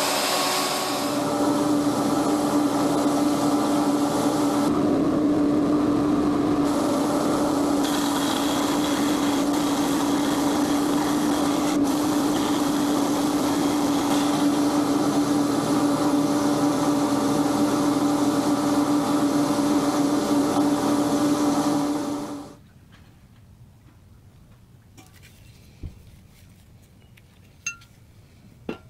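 Bench power tools running steadily in a workshop, a bandsaw and a small belt sander cutting and sanding metal bracket pieces, with a constant hum and a grinding edge that shifts as the work is pressed in. The machines stop suddenly about 22 seconds in, leaving a few light clicks of parts being handled.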